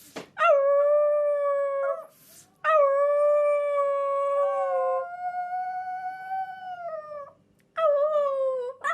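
A dog howling in three long, steady howls. The middle one is the longest and rises a little in pitch partway through, and each howl slides down slightly as it ends. A short breath is heard between the first two.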